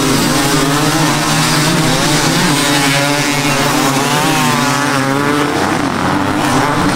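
A pack of dirt bike engines revving hard together as the riders pull away, several engines wavering up and down in pitch over one another; the sound cuts off suddenly at the end.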